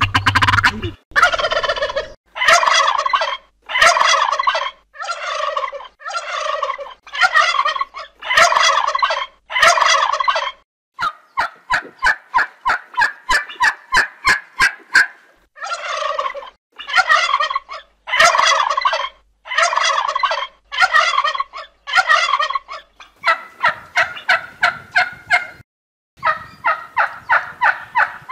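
Male turkey gobbling again and again, each gobble a rattling call of about a second. Two stretches of fast, evenly spaced short calls, several a second, break up the gobbling midway and near the end.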